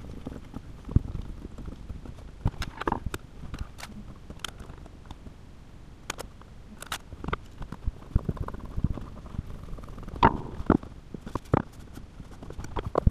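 Irregular clicks and knocks of hand tools, screws and a plywood panel being handled and set down on a countertop, a few of them sharper and louder than the rest.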